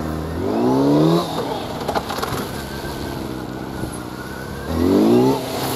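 Sport motorcycle engine revving up twice in short, rising bursts, once about half a second in and again near the end, as the bike accelerates out of tight turns around cones; between the bursts the engine runs at low revs.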